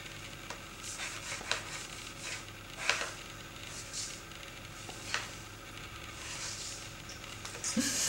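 A blue Abyssinian kitten moving about inside a box: scattered faint scratches and rustles of its paws, with a louder rustling scuffle near the end as it springs off.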